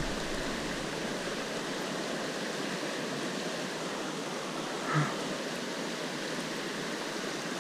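Steady rush of flowing river water, with one brief faint sound about five seconds in.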